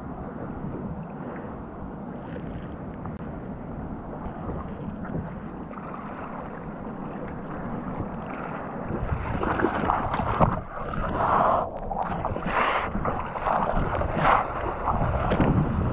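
Wind rumbling on the microphone and sea water lapping close to the surface, then from about halfway through, hands paddling a surfboard: a run of irregular splashing strokes, louder than the lapping.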